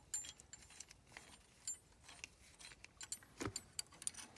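Small metal furnace parts being handled: faint, scattered metallic clicks and clinks with a short bright ring, and one firmer knock about three and a half seconds in.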